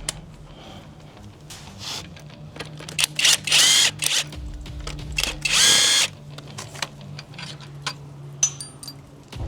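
Power drill spinning a screw out, run in two short bursts with a whine that rises as it spins up, over a faint steady low hum.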